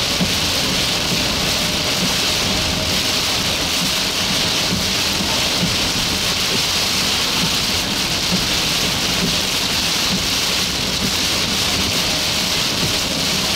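Heavy rain hammering on a car's windshield and roof, a steady dense hiss heard from inside the moving car.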